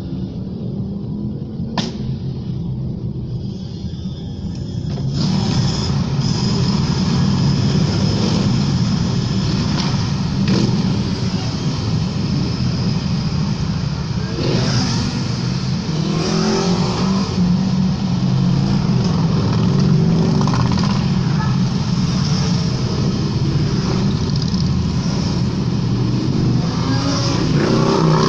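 A convoy of many motorcycles riding past through a road tunnel, their engines echoing off the tunnel walls as a continuous loud drone. It swells about five seconds in, with a few rising engine notes as riders open the throttle.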